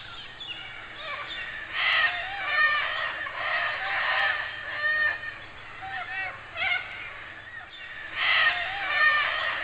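A flock of birds calling: many short, overlapping calls that bend up and down in pitch, swelling and fading several times.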